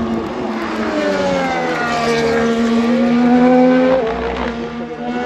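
Formula 1 car's turbocharged V6 engine at high revs as the car passes on track. The engine note dips, then climbs steadily and is loudest about three and a half seconds in. It breaks off about four seconds in, and a steadier engine note follows.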